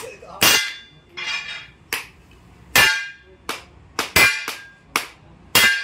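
Hammer blows on steel: about ten sharp, ringing metal strikes at an uneven pace, some close together.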